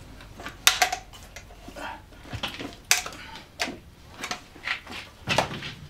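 Bren light machine gun and kit being rummaged out and lifted: a series of separate metallic clicks, knocks and clanks.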